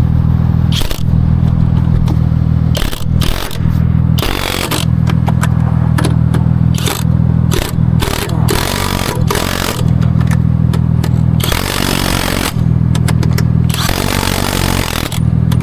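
A vehicle engine running steadily, broken by repeated metallic clicks and clanks and several longer rattling bursts as lug nuts are worked on and off a car's wheel during a roadside tire change.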